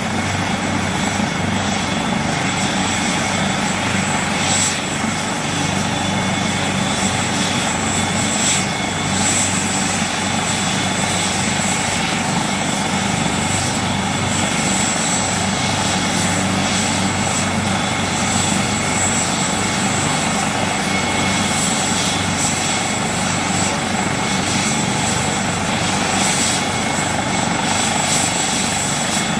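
Helicopter running steadily, a continuous dense rotor and turbine noise with a high whine on top.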